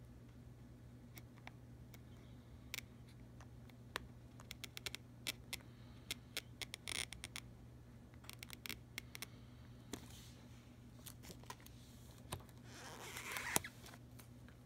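Single-edge razor blade picking and scraping at the edge of a thin plastic smart-film (PDLC) sheet, working the layers apart: many faint small clicks and scratches. Near the end, a short rustle of the plastic sheet ends in a sharp click, over a faint steady hum.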